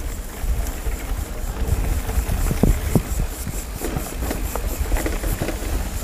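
Mountain bike rattling and clicking over a rough dirt singletrack, with wind rumbling on the handlebar camera's microphone.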